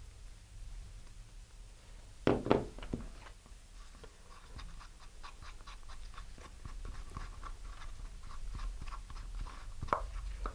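Two-part five-minute epoxy being stirred with a stick in a small paper cup: a soft, rhythmic scraping of about three to four strokes a second. A louder clatter of handling comes about two seconds in.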